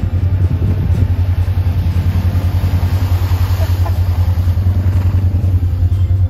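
Polaris RZR side-by-side engines running with a steady low, fast pulse throughout, as one RZR drives through a shallow water crossing and pulls alongside. Water splashing and hiss rise in the middle, then ease off.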